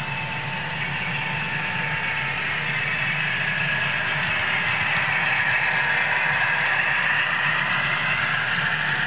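Model train running along the layout's track: a steady mechanical whine and wheel noise whose pitch drifts slowly, growing slightly louder toward the end.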